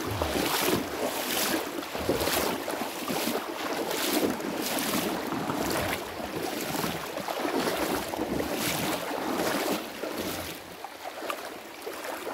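Legs wading through shallow creek water over a pebbly bed: a sloshing swish about once a second, quieter for the last couple of seconds.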